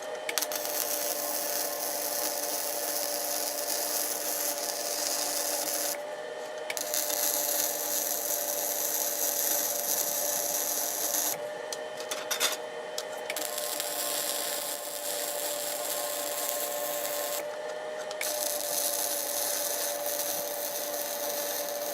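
Small 120-volt Northern Industrial 135 MIG welder laying weld beads on steel: a steady hiss that stops briefly three times, making four welds.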